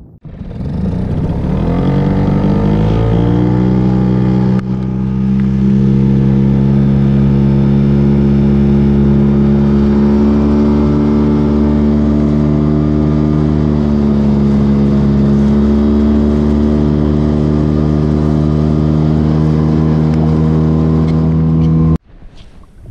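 Small boat motor on an inflatable boat speeding up over the first few seconds, then running at a steady pitch; it cuts off suddenly near the end.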